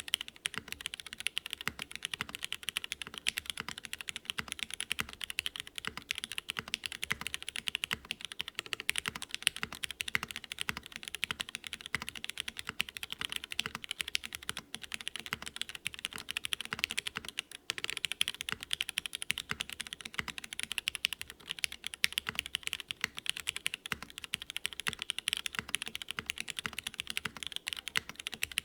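Fast, continuous typing on a Mode Sonnet mechanical keyboard with lubed and filmed Cherry MX Black linear switches, GMK keycaps and an aluminium plate in an isolated top mount. The keystrokes come as a dense, steady stream of clicks.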